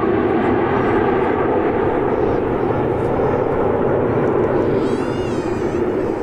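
Formation of nine CT-114 Tutor jets passing overhead: the steady, loud rumble of their turbojet engines, easing slightly near the end. A brief high, wavering sound cuts in about five seconds in.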